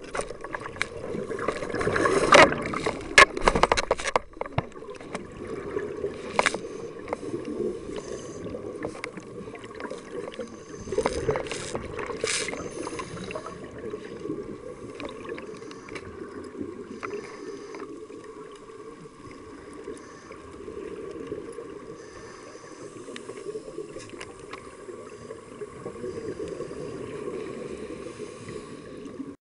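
Underwater rush of water and bubbles picked up through a diving camera, swelling and ebbing in surges, with louder bursts of bubbling about two and eleven seconds in and a faint steady hum underneath.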